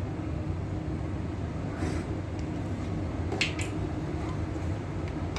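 Steady low hum, with a few light clicks about two seconds and three and a half seconds in.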